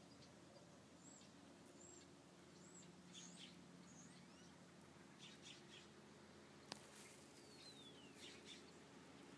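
Faint scattered bird chirps and short calls, with one falling whistle-like call late on and a single sharp click about two-thirds of the way through, over a faint low steady hum.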